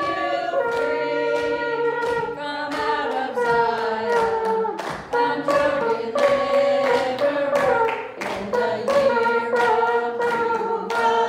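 A congregation singing a worship chorus together, with hands clapping a steady beat along with the song.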